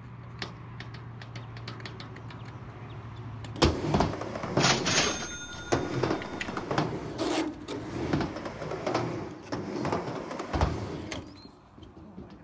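Skateboard dropping in from an axle stall on a six-foot quarter pipe: a loud clack as the board drops onto the ramp about three and a half seconds in, then urethane wheels rolling on the ramp and rough concrete, with knocks and clacks along the way and a hard slap about ten and a half seconds in.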